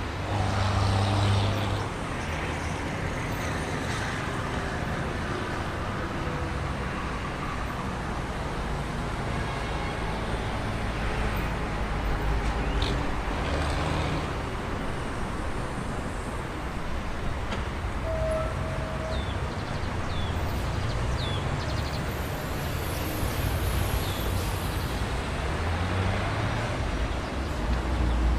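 Traffic jam ambience: a steady bed of idling car and truck engines and road noise, with a few short high squeaks scattered through the middle and a brief steady tone about eighteen seconds in.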